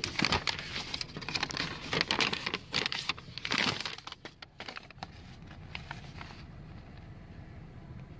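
Handling noises: a run of clicks and crinkling rustles for about five seconds, then only a faint steady hiss.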